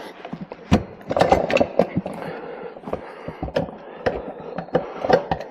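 Irregular knocks and clicks of metal parts being handled and fitted, with the loudest knock a little under a second in: a mini bike's wheel, axle and spacers being worked into place.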